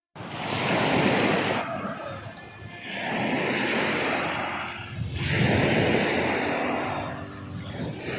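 Small waves washing up on a coarse-sand shore, the surf swelling and falling away in turn every two to three seconds.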